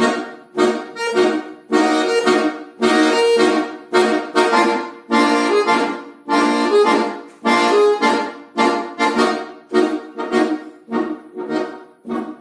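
Instrumental introduction to a song: a series of separate chords, each sounded sharply and then fading, about one or two a second.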